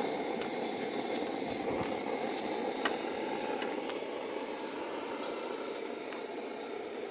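Steady rushing wind noise on the microphone in strong gusty wind, with a few faint ticks.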